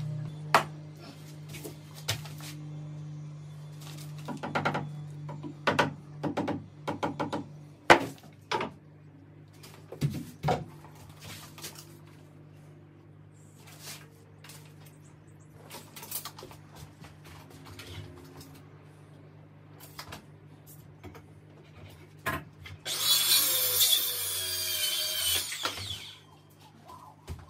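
Carpentry work on timber framing: a string of knocks and taps from wood and tools being handled. Near the end a power tool runs for about three seconds, the loudest sound here. A low steady hum runs underneath.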